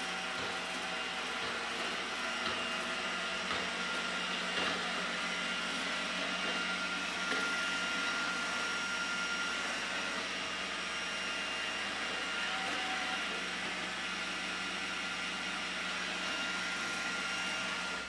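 iRobot Roomba 980 robot vacuum running across a tile floor: a steady noise from its motors and brushes, with a faint high whine.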